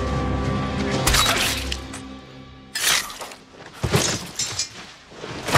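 Film soundtrack of a sword fight: background music that fades out about two seconds in, with sharp metallic sword clashes and hits about one, three, four and five and a half seconds in.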